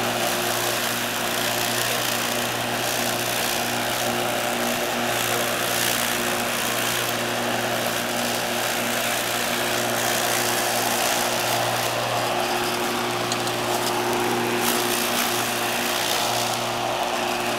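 Electric lawnmower, a Murray deck converted to a 1 hp Century farm-duty electric motor turning a two-blade cross cutter at 1725 RPM, running steadily while cutting grass. It makes a steady hum over a hiss and runs smoothly.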